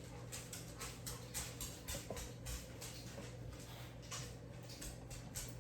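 Wet natural hog casing being worked onto a sausage stuffer horn by hand: faint, irregular little clicks and wet taps, several a second, over a steady low hum.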